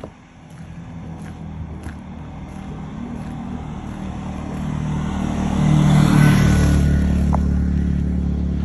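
A car coming along the road, its engine and tyre noise growing steadily louder and passing close by about six seconds in.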